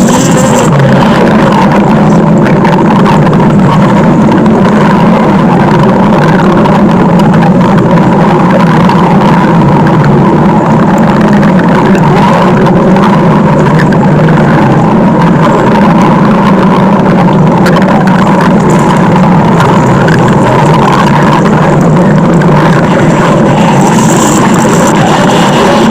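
Stomach-growl sound effect: a loud, dense, unbroken rumble that holds steady without pauses.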